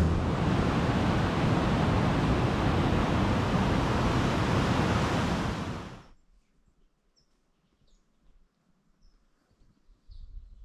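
Motorboat under way on a lake: a steady rush of wind and water with the engine underneath. It fades out about six seconds in, leaving near silence with a few faint high chirps.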